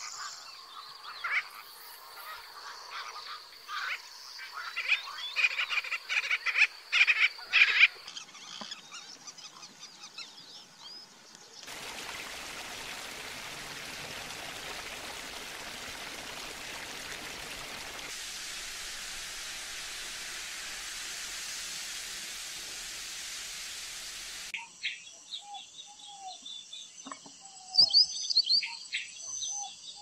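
Outdoor bird calls and chirps, many short calls crowded together at first. In the middle they give way to a long stretch of steady hiss, and short chirps and whistles return near the end.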